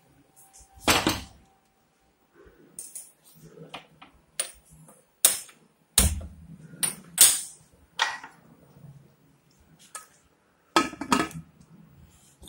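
Aluminium pressure cooker and its lid clanking as they are handled and the lid is fitted and closed onto the cooker: a string of separate sharp metal clanks and knocks.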